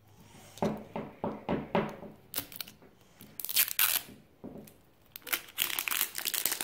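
Wrapping being torn and peeled off an L.O.L. Surprise ball by hand: a run of irregular crinkling rips, loudest about halfway through and again near the end.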